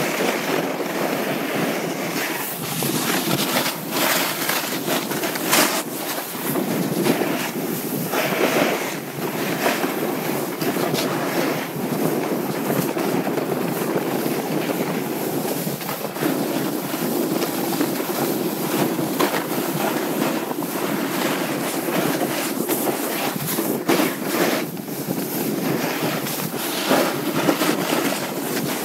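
Wind rushing over a handheld action camera's microphone, mixed with the steady hiss and scrape of a board or skis sliding on snow down a ski run, with occasional sharper scrapes.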